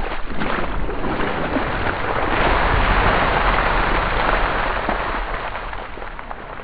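A large dump of ice water splashing down over a person and onto the ground: a steady rushing splash that swells in the middle, then dies away toward the end.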